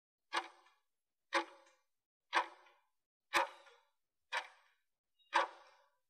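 Interval timer's countdown ticks: a sharp clock-like tick once a second, six times, each dying away quickly, counting down the last seconds of a work interval.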